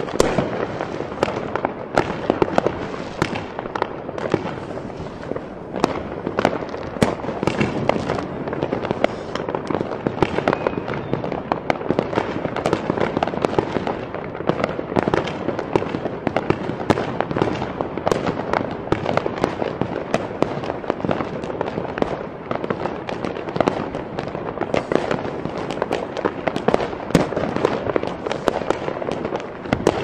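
Fireworks display: a continuous barrage of bangs and crackling, many sharp reports every second over a steady rumble.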